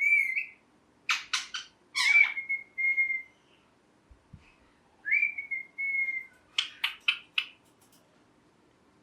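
Ringneck parrot giving short, clear level whistles, about three of them, between two quick runs of short, sharp, harsh calls.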